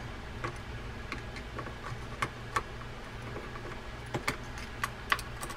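Scattered small metallic clicks and ticks, about seven, irregularly spaced, as a screwdriver works a long screw loose inside a Shimano Calcutta 400 reel's metal frame.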